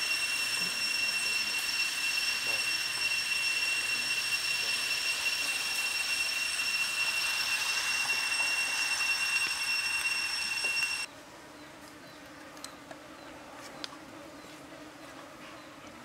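A steady, high-pitched insect drone over a hiss, which cuts off abruptly about eleven seconds in. A quieter background with a few light clicks follows.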